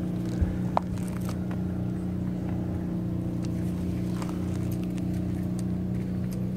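A steady engine hum from an engine running in the background. There are two short clicks under a second in.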